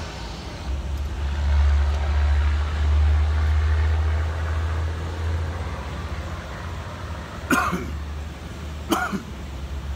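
Truck engine running with a steady low rumble, louder in the first half. Two short coughs near the end, about a second and a half apart.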